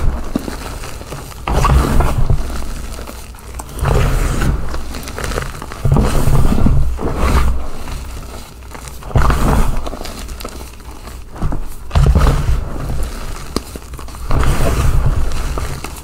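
Reformed gym chalk crunching and crumbling as hands squeeze and crush it into powder, in repeated squeezes about every two to three seconds, each starting loud and fading out.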